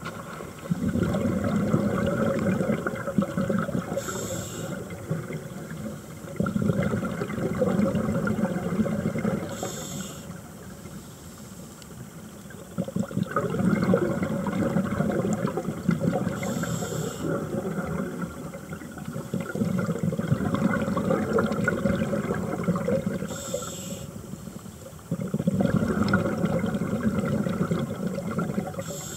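Scuba diver breathing through a regulator underwater: a short, high hiss with each inhalation, roughly every six to seven seconds, each followed by a few seconds of rumbling bubbles as the exhaled air vents.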